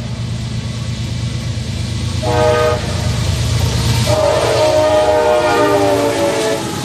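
Locomotive air horn, digitally pitched down. It gives a short blast about two seconds in, then a longer chord of several notes from about four seconds in, over a low train rumble that fades as the chord starts.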